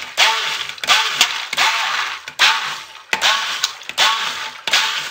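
Stick blender pulsed on and off in short bursts, about seven in a row, each starting with a quick whirring spin-up. It is blending mica colourant into soap-making oils.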